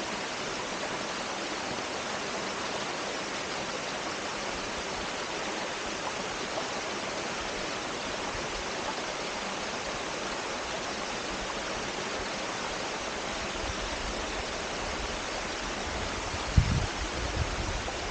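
Steady rushing of a small forest stream cascading over rocks just below. Near the end comes a sudden low thump on the microphone, followed by low rumbling, as the camera is moved.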